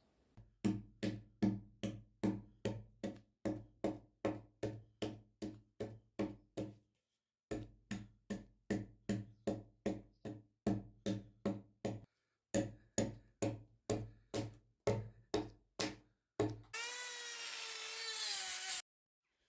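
Rhythmic strokes of a hand tool working a wooden log, about two and a half a second, with two short pauses. Near the end comes a couple of seconds of whining machine noise whose pitch slowly falls.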